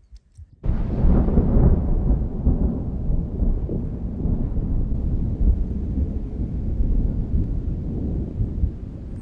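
Thunder: a deep rumble breaks in suddenly about half a second in, loudest over the next second or two, then rolls on and slowly fades.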